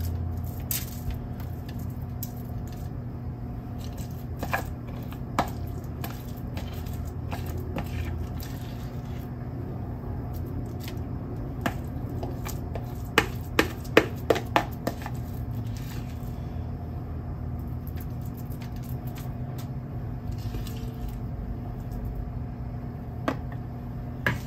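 A spoon scooping soft herb butter from a plastic tub and smearing it onto a raw prime rib roast, with soft squishing and scraping. About thirteen seconds in comes a quick run of sharp spoon clicks. A steady low hum runs underneath.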